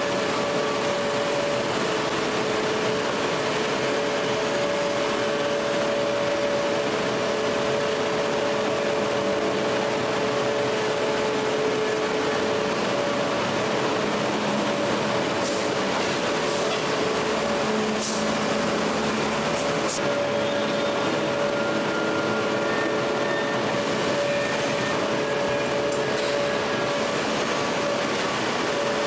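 Steady industrial machinery drone of a hydraulic forging press at work: an even, noisy rumble with two steady hum tones, and a few short high hisses around the middle.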